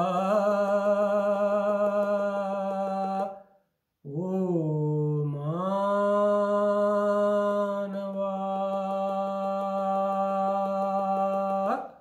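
A man singing a Kannada poem in a slow, chant-like melody, drawing out long held notes. The first held note stops about three and a half seconds in. After a short break, a phrase dips and rises, then settles into another long held note that ends just before the close.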